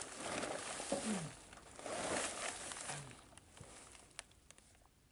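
A man straining under a truck: two long heavy breaths with a low, falling grunt, then a few light clicks.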